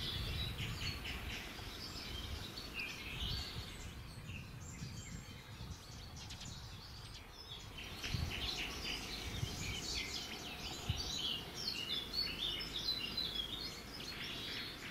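Small birds chirping: many short, high calls that thin out around the middle and come thick again from about eight seconds in, over a low background rumble.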